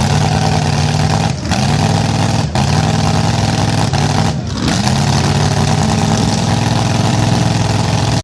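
Vehicle engine running hard and steadily. Its pitch drops briefly and picks back up several times, and the sound cuts off abruptly near the end.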